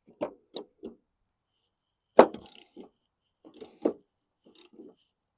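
A string of short knocks and clinks from tools and mower parts being handled during lawn mower repair, the loudest a sharp knock about two seconds in.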